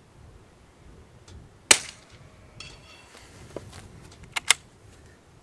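A single rifle shot from a scoped bolt-action rifle about two seconds in, followed a second later by the faint ring of a steel plate target being hit. Near the end, two quick sharp metallic clicks as the bolt is worked.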